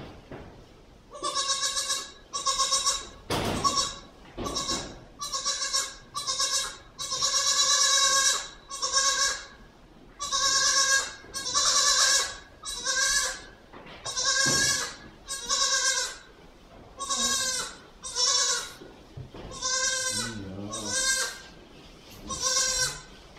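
Goat kid bleating over and over, nearly a call a second: high, wavering bleats, some short and some drawn out. It is a young kid calling for its mother.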